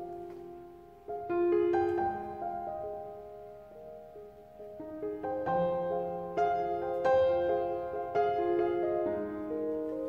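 Background piano music: slow single notes and chords that are struck and left to ring and fade, with a new phrase starting about a second in and another after about five seconds.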